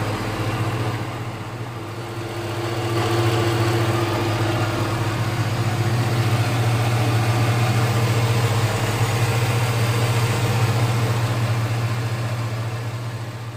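Chevy 5.3 LS V8 idling steadily, running for the first time after a new camshaft, lifters and head gaskets have gone in. The steady hum gets louder a few seconds in.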